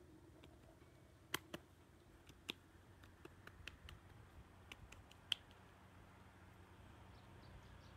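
Near silence broken by about a dozen sharp, irregular clicks over a few seconds, the loudest a little past one second in and near five seconds in, with a faint bird chirp near the end.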